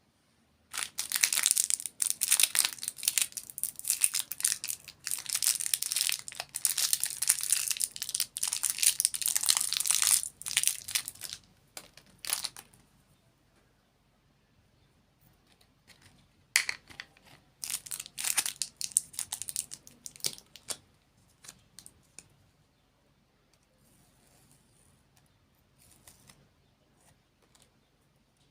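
A candy wrapper being crinkled and torn open in two bouts: a long stretch of dense crackling at the start, then a shorter one about halfway through.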